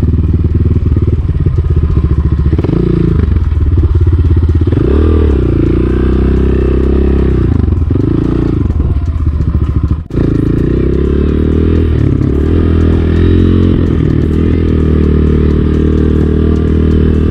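Enduro motorcycle engine running under way, its pitch rising and falling repeatedly with the throttle. The sound breaks off for an instant about ten seconds in, then carries on.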